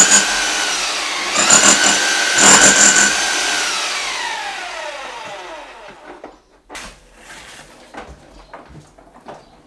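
Electric hammer drill (perforator) drilling, its motor whining with two harder bursts in the first three seconds. The trigger is then released and the motor winds down in a long falling whine that fades out. Scattered light knocks and clatter follow.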